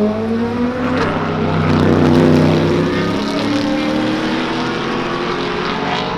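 Race car engine accelerating, its pitch rising, with a gear change about a second in and a second rise in pitch after it.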